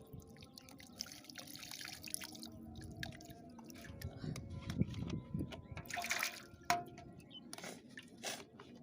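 Water dripping and splashing, with scattered small clicks and knocks.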